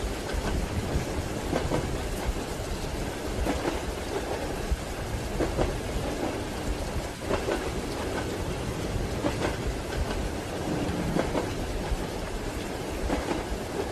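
Rain on a train window over the steady rumble of a moving train, with the wheels clacking over rail joints in a regular rhythm about every two seconds.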